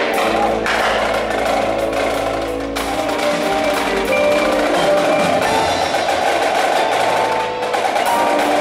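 Indoor percussion ensemble playing: marimbas and vibraphones ringing out held and struck notes over drums, with a low held bass under the first half that drops out about four seconds in.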